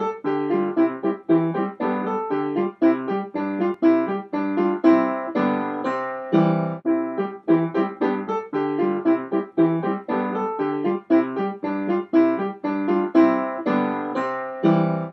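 Keyboard music: piano-like notes and chords struck in a steady, even rhythm.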